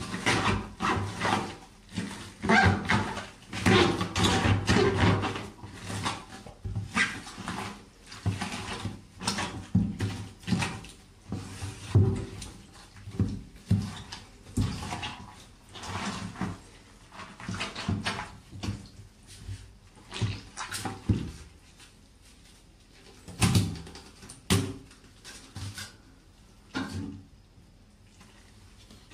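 Rubber boots stamping and grinding food on a wet floor: repeated squelches and crunches of leafy greens and raw chicken being crushed underfoot, with rubber soles squeaking. The stamping is dense and irregular, thins out about two-thirds of the way in, and gives way to a few last stamps near the end.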